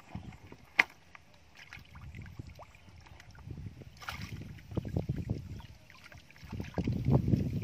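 Splashing and sloshing in shallow muddy water as hands scoop up fish and the stranded fish thrash, growing louder near the end. A single sharp click about a second in.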